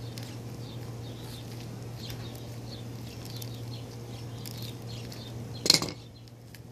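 Cable cutter jaws worked around the thick rubber jacket of 4/0 welding cable to score it for stripping, giving soft scraping and creaking, then one sharp snap about five and a half seconds in.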